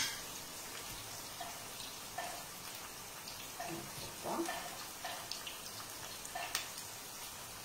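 Faint, steady sizzle of a sauce frying in a pan on the stove, with scattered small crackling ticks. There is a sharp click right at the start, and soft handling noises as stuffed zucchini are filled by hand.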